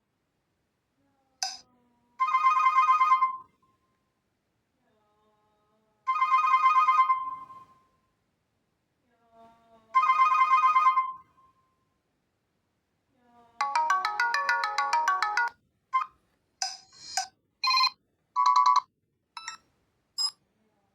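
Reeder P13 Blue smartphone playing its built-in ringtone and notification tones one after another, with silence between them. Three alike electronic chimes of about a second and a half each come about four seconds apart, then a quicker melodic jingle of about two seconds, then several short blips.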